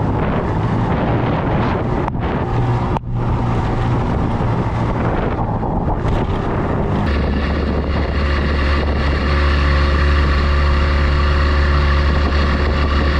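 A small boat's motor running steadily under way, with wind buffeting the microphone. About seven seconds in, the engine hum grows deeper and a little louder.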